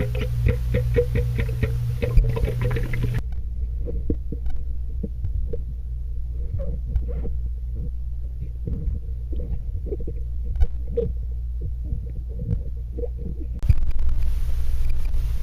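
Background music for the first few seconds, then muffled underwater sound from a submerged camera in a swimming pool: a steady low rumble with scattered bubbling clicks and pops, until the full, unmuffled sound returns near the end.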